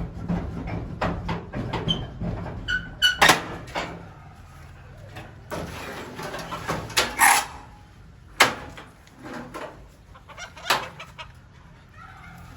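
Chickens clucking and calling, with scattered sharp knocks and rustles among them.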